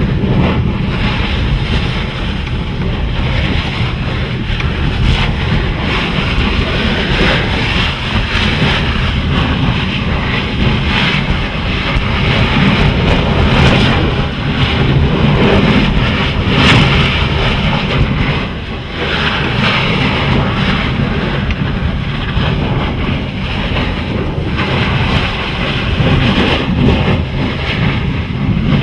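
Steady wind buffeting the microphone over the rush of ocean waves around a boat at sea.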